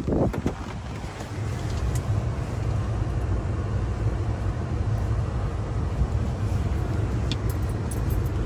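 Ford Transit van's engine idling, a steady low rumble heard from inside the cab.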